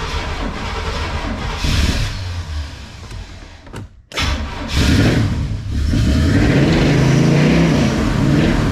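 1981 Oldsmobile Cutlass engine running, then the sound drops out briefly about four seconds in. The engine then fires up again and settles into a steady idle. It starts straight up once a small relay wire has been unplugged and plugged back in.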